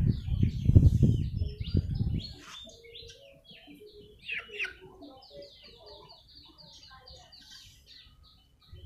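Hands pressing and firming potting soil around seedlings in a plastic pot, a loud close rustle and crunch for about the first two seconds. After that, small birds chirp, with a quick run of repeated short chirps midway.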